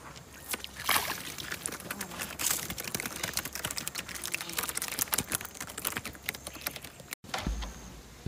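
Footsteps crunching and rustling through dry, trampled grass and straw over mud: a dense run of sharp crackles. A short break comes near the end, followed by a low rumble.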